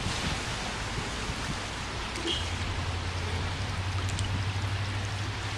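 Steady hiss of light rain, with a low steady hum joining about two seconds in.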